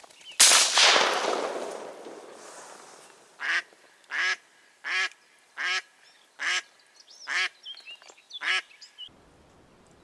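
A single shotgun shot about half a second in, its echo fading over a second or so. Then a duck quacks seven times in an even series, roughly one call a second: the live decoy hen calling.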